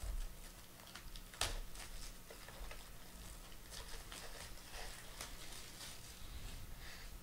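Plastic shrink-wrap crinkling and crackling in irregular bursts as it is torn off a sealed trading-card box, with one sharper crackle about a second and a half in.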